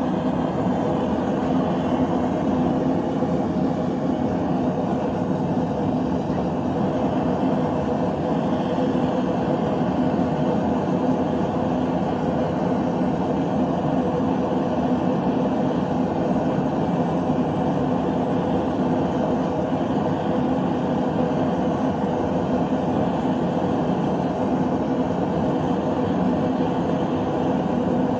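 A knife-making forge running: a steady rushing noise with a low hum underneath, unchanging throughout.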